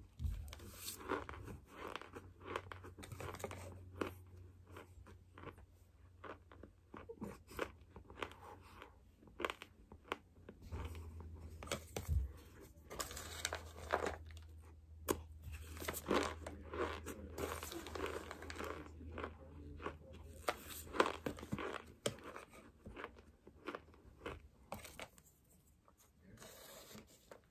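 Mouthfuls of raw cornstarch being chewed with dense, irregular crunching, mixed with a plastic spoon scraping and digging into a tub of the powder. The crunching thins out briefly near the end.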